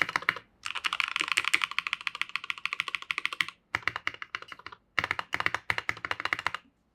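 Fast typing on a custom 65% mechanical keyboard with lubed Gateron Yellow KS-3 linear switches in an acrylic sandwich-mount case. Rapid keystrokes come in runs broken by three short pauses, and the typing stops just before the end.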